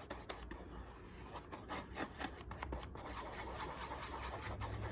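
Paintbrush mixing paint on a plate palette: bristles rubbing and scraping against the plate in short, irregular strokes.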